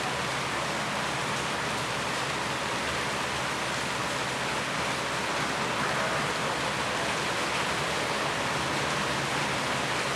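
Steady rain falling, an even hiss that stays constant throughout.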